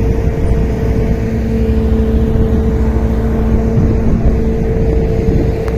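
Lattice-boom crane's engine running steadily, a heavy low rumble with a steady whine on top; a second, lower whine joins about a second in and fades out near the end.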